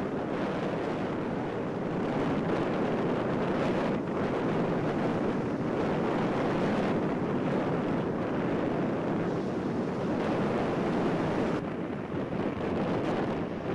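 Strong wind buffeting the camera's microphone, a steady rushing noise with small dips in level.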